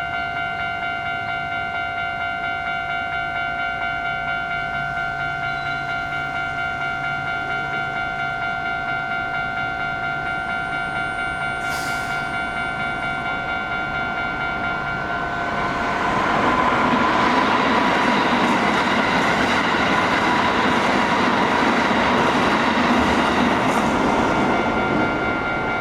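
A Japanese level crossing's warning bell rings in a fast, even, repeated clang. About 16 seconds in, a train passes through the crossing with loud rolling wheel-on-rail noise over the bell, fading just before the end.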